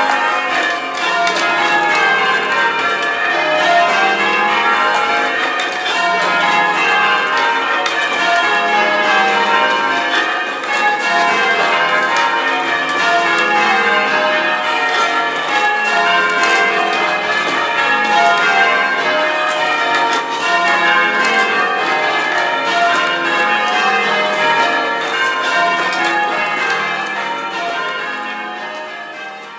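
Church bells being change rung: a peal of tower bells struck one after another in quick, steady rounds, the tones overlapping. The ringing fades out near the end.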